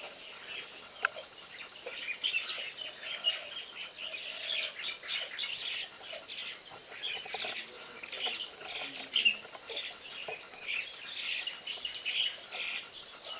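Small birds chirping busily and continuously, a chatter of many short high chirps. Two sharp taps stand out, about a second in and about nine seconds in.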